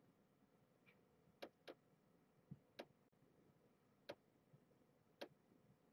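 Near silence: room tone broken by about six faint, sharp clicks at irregular intervals.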